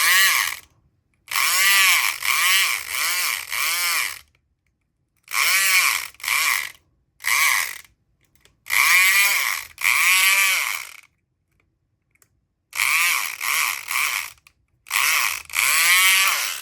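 Southord E500XT electric pick gun buzzing in about six bursts of one to three seconds with short pauses, its pitch wavering within each burst as the vibrating needle snaps against the pins of a pin-tumbler lock. The lock does not open.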